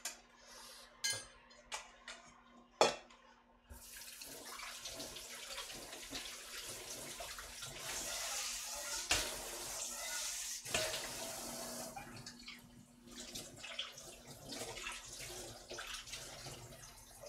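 A few sharp clinks of metal kitchenware, then a kitchen tap running into a stainless steel sink over a bowl and strainer of cooked bean sprouts, the water splashing more unevenly after about twelve seconds as the bowl is moved around.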